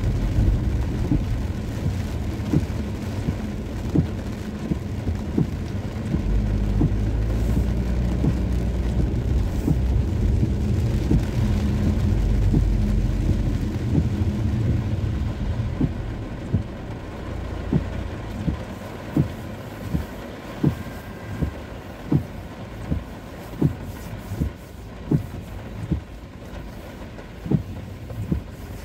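Car driving in the rain: steady engine and wet-road rumble that eases after about fifteen seconds, leaving a regular knock about once a second.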